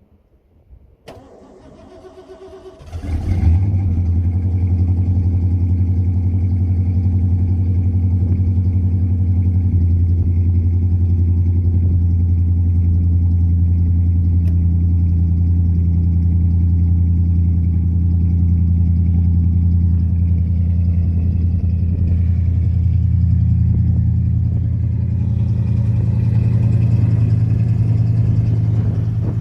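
1990 Ford F-250's 5.0 L (302) V8 with true dual exhaust, cold-started after sitting two months at about 34 degrees. A click about a second in and about two seconds of cranking, then it catches about three seconds in and settles into a loud, steady idle.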